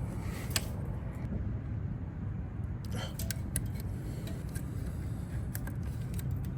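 A few scattered light clicks and taps from hand tools working on the motorcycle's tightly fastened factory oil filter, over a steady low rumble of background noise.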